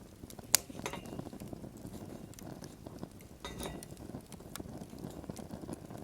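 Wood fire crackling with scattered pops, a sharp click about half a second in, and light metallic clinks near one second and again around three and a half seconds in, like utensils against metal.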